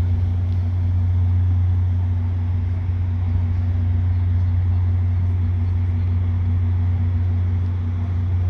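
Steady low hum of VIA Rail's Canadian passenger train standing idle, its locomotive and onboard equipment running continuously.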